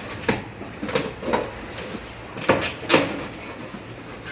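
Packaging on a carton of kitchen shutters being torn and handled while the box is opened: about five short scraping, tearing sounds a fraction of a second to half a second apart.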